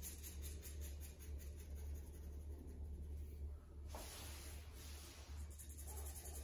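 Faint scratching of a pencil shading on paper, with a longer run of strokes from about four seconds in, over a low steady hum.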